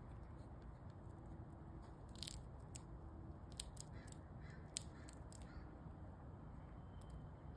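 Squirrel gnawing food held in its front paws: a scatter of small sharp crunches and clicks, bunched in the middle few seconds.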